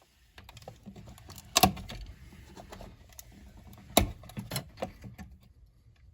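Handling noise at a wall receptacle: a few sharp clicks and light knocks over a low hum, the loudest about a second and a half in and again at four seconds, as the GFCI receptacle is being worked loose from the wall.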